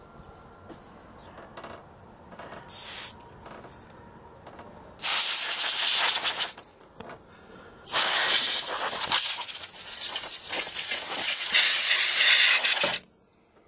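Canned compressed-air duster spraying in bursts: a short one about three seconds in, a burst of a second and a half around five seconds, then a long burst of about five seconds that cuts off suddenly near the end. The can is nearly empty.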